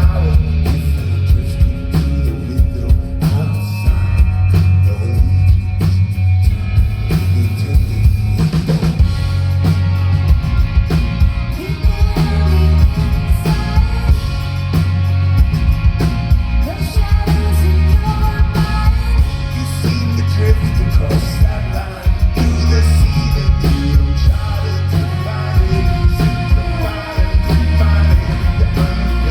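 Live rock band playing a song over a loud PA, with heavy pulsing drums and bass, guitar, and a singer's voice. The singing is clearest from about a third of the way in.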